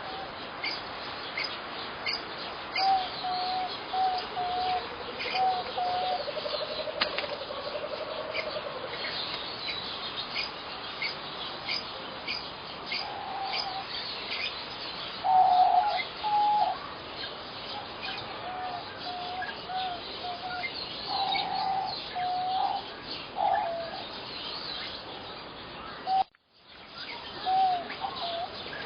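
Birds calling: phrases of short, evenly repeated mid-pitched notes over many brief high chirps, against a steady background hiss. Near the end the sound cuts out for a moment.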